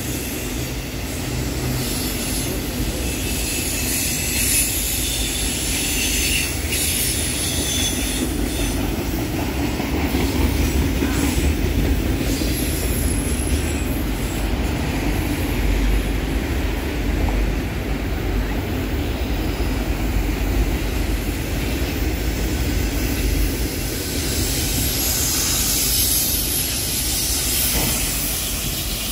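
CSX freight train of enclosed autorack cars rolling steadily past, a continuous rumble of steel wheels on the rails with high squealing from the wheels.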